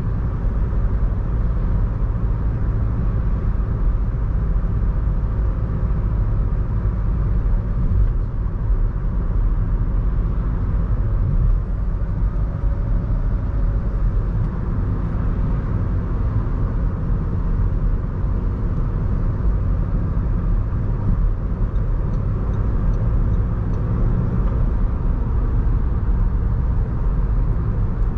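Audi A1 1.6 TDI diesel on the move: a steady low rumble of engine and road noise, unchanging throughout.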